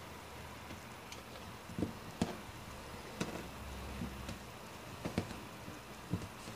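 Soft, irregular taps and knocks of fingers pressing and laying Play-Doh ropes on a tabletop while braiding them, over a faint steady low hum.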